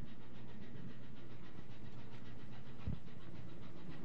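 Ship's engine running steadily at sea: a low, even hum with a quick, regular clatter over it and one dull thump about three seconds in.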